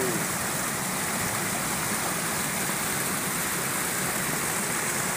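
Shallow river water rushing and splashing over rocks in small cascades, a steady, even rush.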